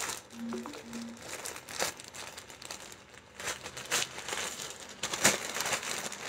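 Clear plastic garment bags crinkling and rustling in irregular handfuls as packaged kurtas are handled.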